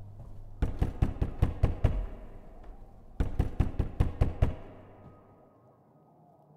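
Two rapid runs of heavy knocks, about six or seven strikes in each, the first starting just after the start and the second about three seconds in; after that, only a faint background.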